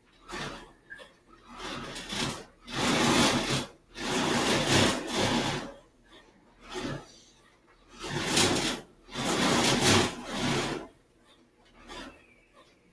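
A sheet of drawing paper on a stiff backing being handled and shifted close to the microphone: a series of rubbing, scraping noises, each from about half a second to nearly two seconds long, with short pauses between.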